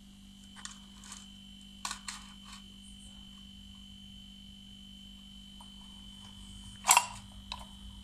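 Refrigerator compressor humming steadily as it pulls the low-pressure side down toward vacuum. A few light clicks in the first three seconds, and one sharp knock about seven seconds in.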